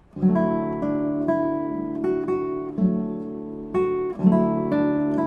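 Acoustic guitar music: chords strummed and picked in a steady rhythm, starting about a quarter second in.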